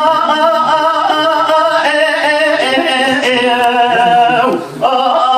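Unaccompanied Kurdish dengbêj singing by a man: one voice holding long, ornamented, wavering notes, breaking off briefly for breath near the end and then going on.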